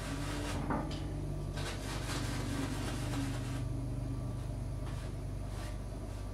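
Oil-paint brush strokes on a stretched canvas: a soft swishing that repeats every half second or so, over a steady low electrical hum.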